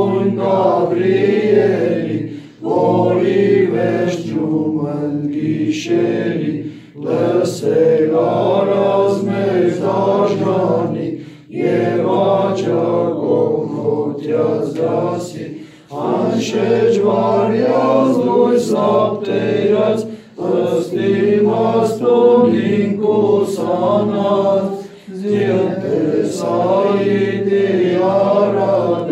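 Armenian church hymn chanted a cappella in Classical Armenian by voices without instruments. It goes in long melodic phrases, each broken by a short pause for breath about every four to five seconds.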